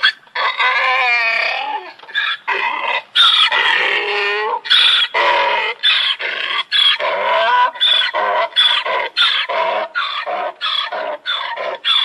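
Donkey braying: one long call near the start, then a run of repeated hee-haw calls that grow shorter and quicker toward the end.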